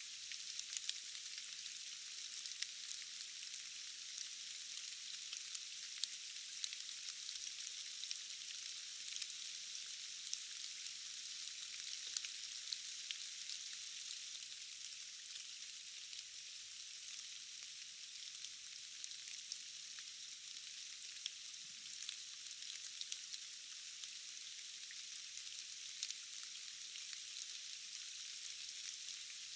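Steady rain falling: an even, dense hiss of drops with many small sharp drop ticks scattered through it, all thin and high, with no low rumble.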